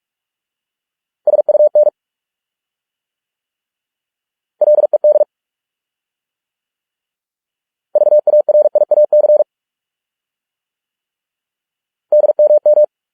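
Morse code sent at 45 words per minute as a single steady beep tone: four short words of rapid dots and dashes, separated by pauses of two to three seconds of silence.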